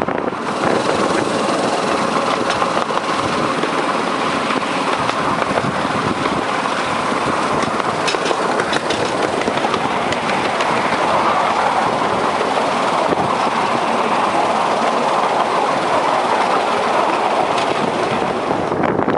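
Miniature railway train running along its track: a steady clatter of wheels on rail with occasional sharp clicks.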